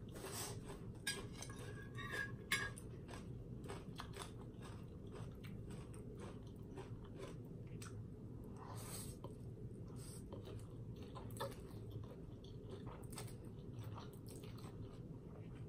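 Close-up eating sounds: chewing with many small wet mouth clicks, and a slurp of instant noodles about nine seconds in, over a low steady background hum.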